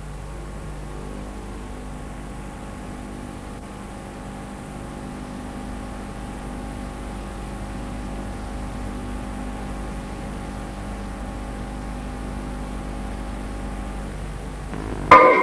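Steady low hum and hiss from an old video-tape soundtrack, with a few faint steady tones, until music cuts in loudly at the very end.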